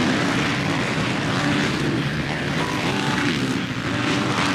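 Several motocross bikes' engines running hard at high revs as they race around the track, with the pitch wavering up and down.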